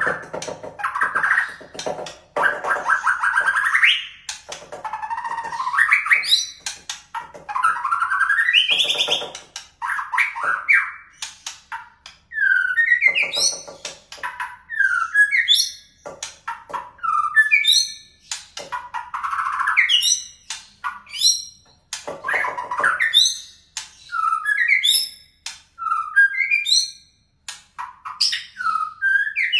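White-rumped shama (murai batu) singing a long, varied song of whistled phrases, gliding notes and rapid high chips and trills, with canary-like fill-in phrases worked in.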